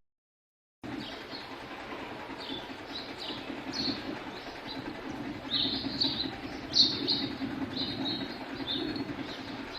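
House sparrows chirping: many short chirps, sparse at first and busier and louder from about halfway through, over a steady low background noise. A brief gap of silence opens the sound.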